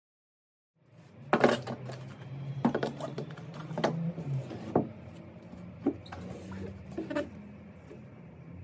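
Plastic car centre-console trim parts, covered in suede-like fabric, being handled on a table: a series of irregular knocks and clicks, starting about a second in, over a steady low hum.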